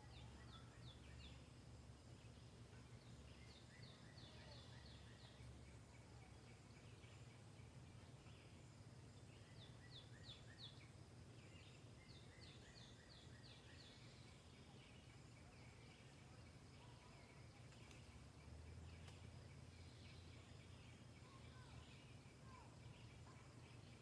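Faint woodland birdsong: birds calling in repeated short runs of quick, high notes, with a faint steady trill in the second half, over a low steady hum of background noise.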